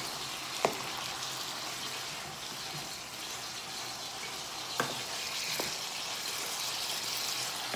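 Vegetables frying in a pan, a steady sizzling hiss, with a few sharp clicks, the loudest about a second in and two fainter ones a little past the middle.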